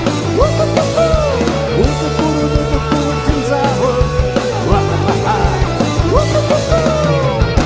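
Live rock band playing a passage without sung words: lead notes bending up and down over bass and drums.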